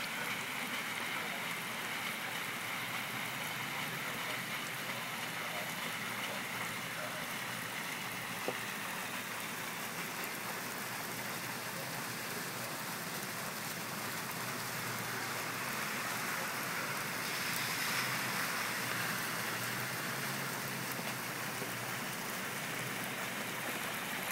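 Heavy rain from a thunderstorm falling steadily on wet pavement and parked cars, coming down a little harder about two-thirds of the way through.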